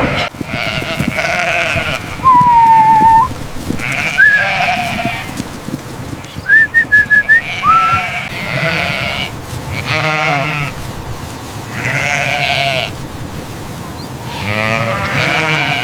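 A flock of sheep bleating over and over, in overlapping calls. Between about two and eight seconds in, a few short, clear whistled notes sound, one of them warbling.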